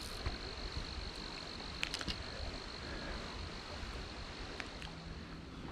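An insect singing one steady high-pitched note, over a low outdoor rumble, with a few faint clicks about two seconds in.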